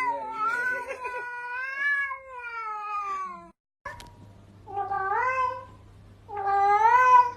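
A cat's long, wavering yowl lasting about three and a half seconds. After a brief silence come two separate meows.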